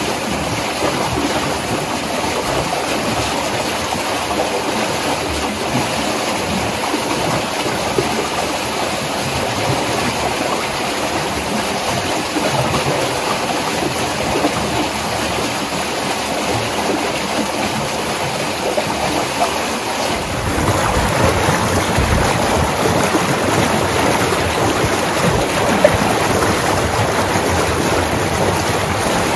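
Water rushing steadily along an open channel through the snow, growing louder about twenty seconds in.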